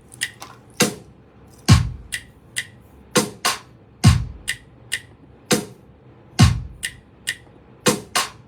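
An instrumental hip-hop/dancehall beat is playing: a slow, sparse drum-machine pattern of deep kick drums that drop in pitch, alternating with sharp snare or clap hits, with no vocals.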